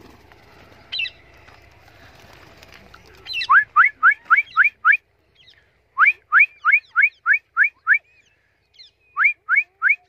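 Rapid series of short, identical rising whistles, about four a second, in three runs with short gaps, starting about three and a half seconds in. This is recall whistling to call free-flying parakeets back.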